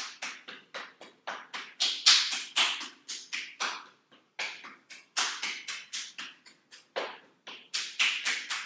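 Palm pats tapping quickly along the arm, several slaps a second in an uneven rhythm: a self-percussion massage of the arm.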